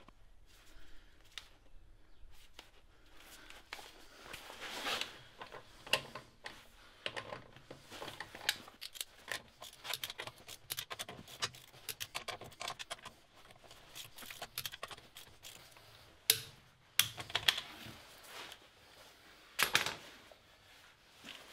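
Steel socket and extension clicking and clinking on the wheel nuts as they are turned and tightened, with a few louder metal clacks in the last few seconds.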